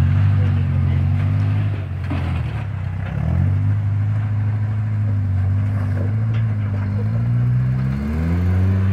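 Off-road pickup truck engine working under load while rock crawling, revving up and down in pitch, easing off briefly about two seconds in and climbing again near the end.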